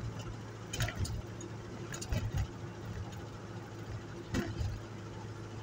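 Steady engine and road drone heard from inside a moving vehicle's cab, with a few short knocks in small clusters, about a second in, around two seconds in and again past four seconds.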